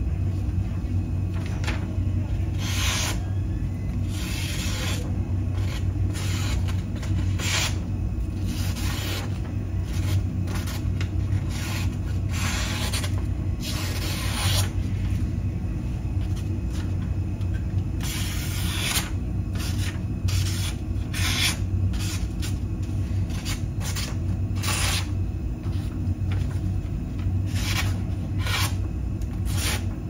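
Folding pocket-knife blade slicing through thin card in repeated strokes, each a short rasping hiss of a fraction of a second to about a second, the blade not freshly sharpened. A steady low hum runs underneath.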